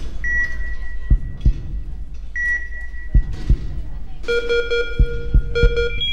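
Heartbeat sound effect: paired low thumps repeating about every two seconds. Over it a high electronic beep repeats at a similar pace. About four seconds in, a sustained synthesizer chord enters.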